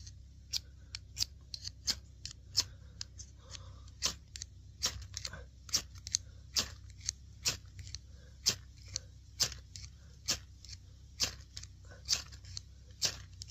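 Steel striker scraped down a ferrocerium fire steel again and again, short scraping strokes at about one and a half a second, throwing sparks onto tinder.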